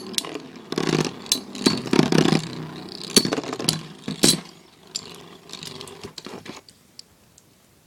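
Two Beyblade spinning tops, Blitz Unicorno and Lightning L-Drago, whirring in battle and clashing with repeated sharp clacks. The clashes thin out and the whirring dies away about six and a half seconds in.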